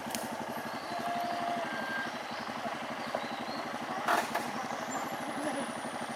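An engine idling steadily, a rapid even pulsing, with one sharp knock about four seconds in.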